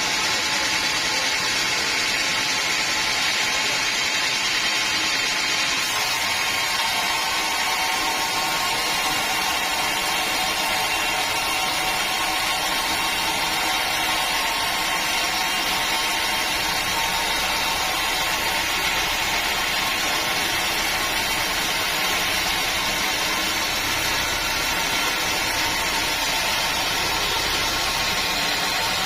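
Sawmill saw machinery running steadily, a continuous dense mechanical noise with a slight change in tone about six seconds in, in a mill sawing teak logs.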